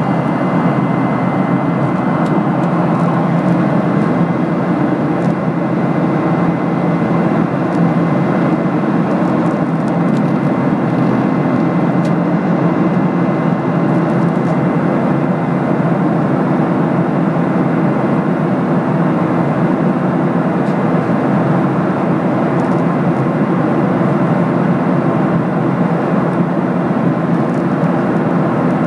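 Steady cabin noise inside a Boeing 737-800 in flight: the even rush of airflow over the fuselage and the drone of its CFM56 turbofan engines, unchanging throughout.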